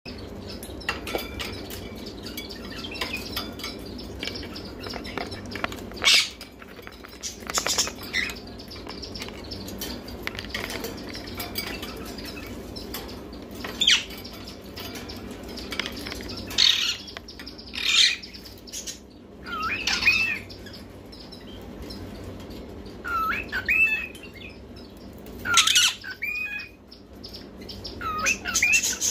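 Caged ringneck parakeets calling: short, sharp squawks now and then, and from about two-thirds of the way in, twisting, warbling whistled calls. A steady low background runs underneath.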